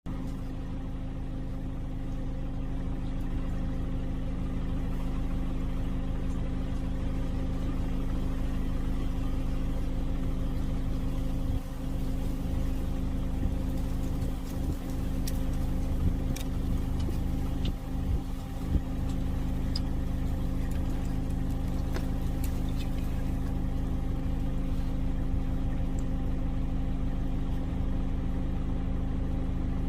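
An engine idling steadily at an even pitch, with a few faint clicks around the middle.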